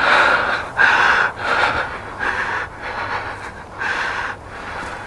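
Heavy, rapid breathing: short hissing breaths in and out about every three-quarters of a second, fading towards the end.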